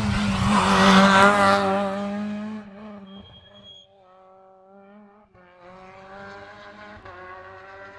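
Renault Clio rally car passing at speed: the engine is loudest about a second in, then fades as the car pulls away, still heard in the distance revving through the gears, with a short break at a gear change about five seconds in.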